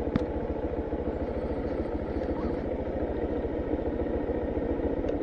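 Honda Monkey 125's single-cylinder four-stroke engine idling with a fast, even putter while stopped, with a small click shortly after the start.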